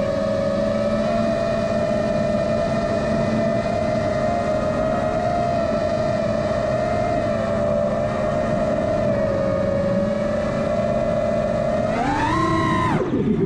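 Radio-controlled aircraft in flight, its motor and rotors giving a steady multi-tone whine. About twelve seconds in the pitch rises briefly, then drops sharply and climbs back.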